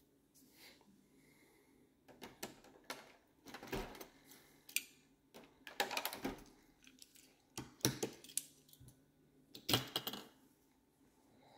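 Faint, scattered clicks and light rattles of small hard objects being handled, coming in short clusters every second or two.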